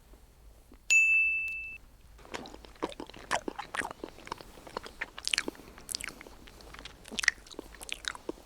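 A loud bell-like ding about a second in that fades out within a second, followed by close-miked chewing of sushi: a steady run of sharp mouth clicks and smacks.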